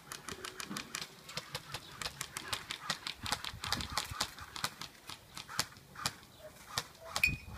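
Airsoft guns firing in a skirmish: a string of sharp, irregular clicking shots, several a second.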